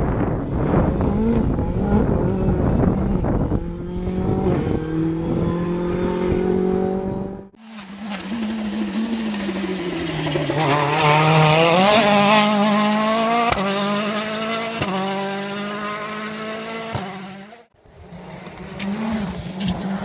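Rally cars' turbocharged four-cylinder engines driven hard on a special stage, three separate passes: engine note climbing through the revs, dropping as the car brakes, then rising again through quick gear changes. There are two sharp cracks about two-thirds of the way through.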